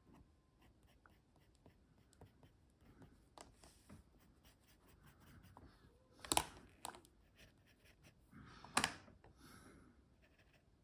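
Thick drawing pencil scratching on paper in short, faint strokes, with two louder, sharper strokes about six and nine seconds in.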